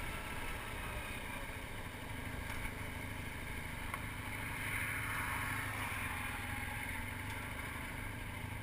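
Motorcycle engine running steadily, mixed with wind and road noise, heard from a camera mounted on the moving bike.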